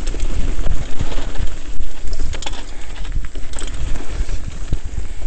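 Wind rumbling on the camera microphone while a mountain bike rattles down a rough dirt trail at speed, with frequent sharp knocks from bumps.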